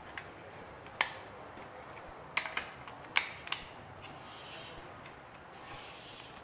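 A cooked lobster's shell being cracked open: a series of sharp cracks and snaps, several close together about two and a half and three seconds in. A softer crackling follows as the shell gives way.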